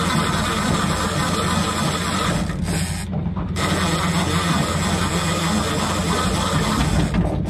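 A fishing reel's drag screaming as a hooked fish pulls line off, easing briefly about three seconds in, over the steady low hum of the outboard motor.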